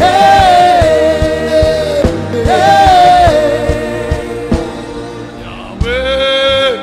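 Gospel worship music: a voice sings long held notes that bend slightly, over a sustained backing with a steady beat.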